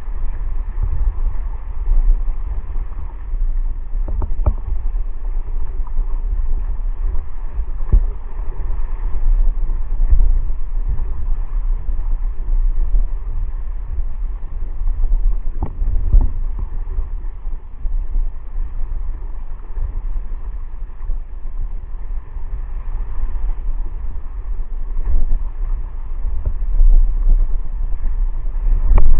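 Wind buffeting the microphone of a camera on a foiling windsurf board at speed, a heavy low rumble, with a few sharp knocks from the board and rig.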